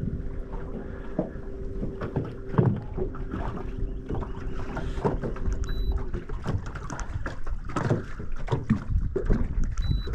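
Water slapping and knocking against a small fishing boat's hull, with wind on the microphone and a steady hum that cuts off about six seconds in.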